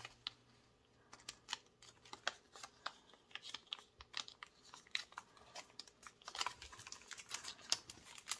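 Paper banknotes being handled and tucked into place by hand: an irregular run of small crinkles and taps.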